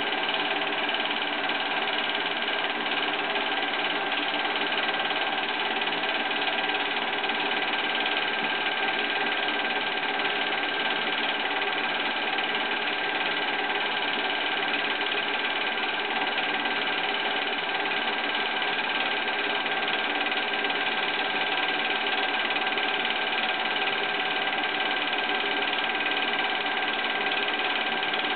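Film projector running steadily: a constant mechanical whir with several steady tones and no change in level.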